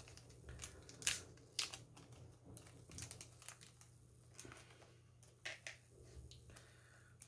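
Small plastic parts bag crinkling as it is handled and opened, with a few short clicks as tiny screws are shaken out onto the work mat.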